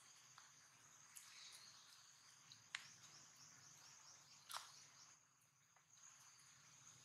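Faint outdoor ambience: a steady high-pitched insect drone, with a quick run of soft chirps about three seconds in and a few short sharp calls, the clearest a falling one about four and a half seconds in.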